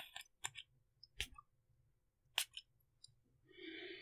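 A few faint clicks and taps of a cologne bottle and its lid being handled, then a short soft hiss near the end.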